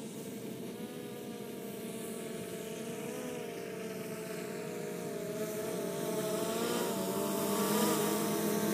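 Autel X-Star Premium quadcopter's propellers and motors buzzing in flight, a steady drone whose pitch wavers slightly as the motors adjust. It grows louder over the last few seconds.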